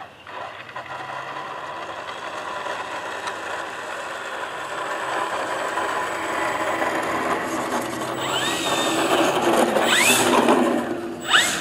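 Radio-controlled Extra 260 model aeroplane's motor and propeller whirring as the plane rolls and taxis, growing louder as it comes closer. In the last few seconds the pitch rises in a few quick throttle blips.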